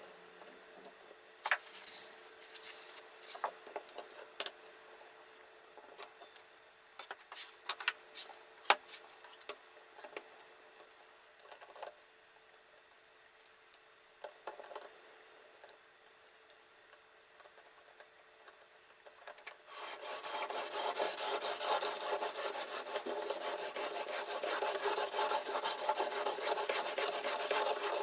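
Scattered light clicks and taps of metal parts as a knife is clamped and set in a fixed-angle sharpener. About twenty seconds in, a steady, rapid scraping starts: the steel blade being stroked back and forth across a diamond sharpening plate, in footage sped up three times.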